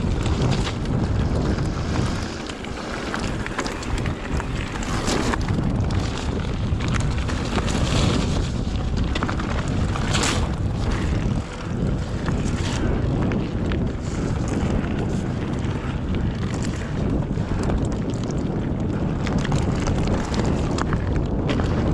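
Wind rushing over the camera microphone, with the rumble and occasional rattles of a mountain bike rolling over a rough trail.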